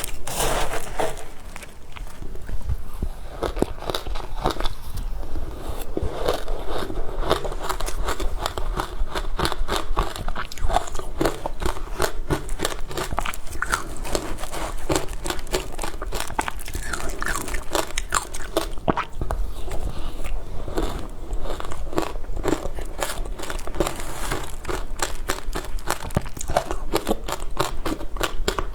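Close-miked crunching of frozen matcha ice being bitten and chewed: a dense, continuous run of crisp crunches.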